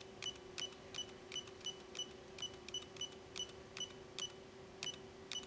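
A run of short, high clicking beeps from a CNC lathe's control panel, about two to three a second and slightly uneven, over a steady low electrical hum.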